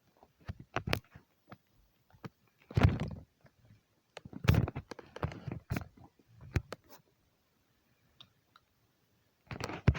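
Scattered clicks and knocks, with two louder bumps about three and four and a half seconds in and another near the end, with a quiet stretch just before it.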